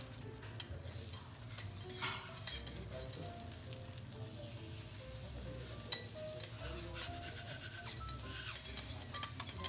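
Wagyu beef fillet sizzling in fat on a steel teppanyaki griddle, with scattered clicks and scrapes of a metal spatula and knife on the plate as the steak is stood on its side to sear. One sharp click about six seconds in is the loudest.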